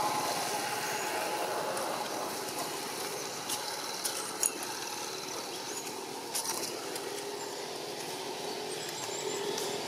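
Steady outdoor background hum and hiss, with a few faint sharp clicks about four seconds in and again past six seconds.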